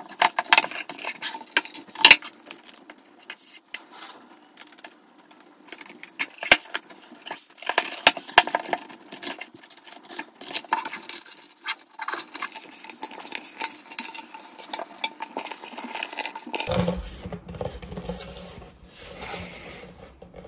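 Hands handling a wooden art panel with paper stretched over it on a tabletop: scattered taps, knocks and soft rubbing as the paper edges are pressed down and the panel is turned and lifted.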